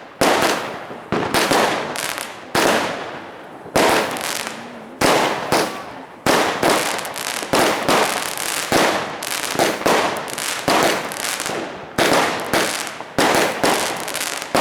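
Fireworks going off in a run of sharp bangs, about one a second. Each bang trails off in crackle and echo.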